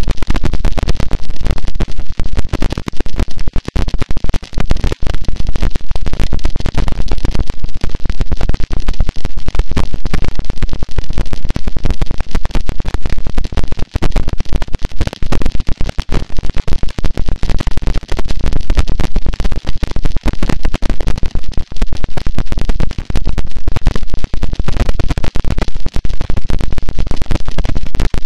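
Harsh noise wall: a loud, unchanging wall of distorted static, dense with crackle, with no rhythm, melody or voice.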